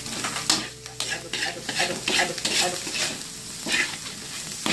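Metal spatula scraping and tossing scrambled egg and Chinese sausage around a metal wok in quick, irregular strokes, over a steady sizzle of frying.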